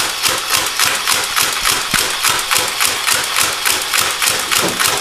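Belt-fed Nerf foam-dart blaster firing on full auto: a steady, rapid clatter of shots at about five a second.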